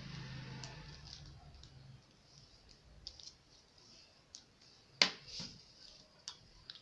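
Light clicks and taps of a tape measure and hand on a paper pattern sheet, with one sharper click about five seconds in; a low hum fades out over the first two seconds.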